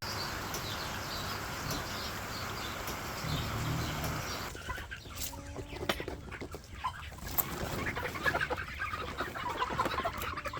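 Chickens clucking, with a few sharp knocks in the second half.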